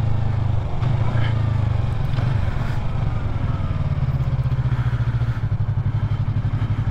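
Yamaha MT-03 motorcycle engine running steadily while riding, a low even drone that pulses in the latter half.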